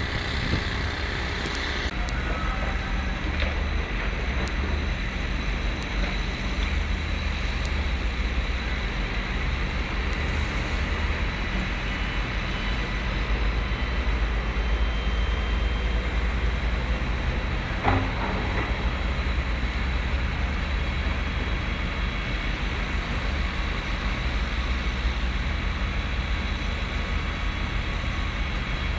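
Steady outdoor rumble, mostly deep and flickering, of road traffic around a city building site, with a single sharp click about eighteen seconds in.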